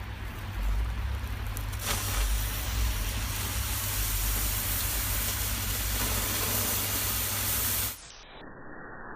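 Firework burning with a loud, steady hiss over a low rumble. The hiss starts about two seconds in and cuts off abruptly near the end, leaving a duller, muffled noise.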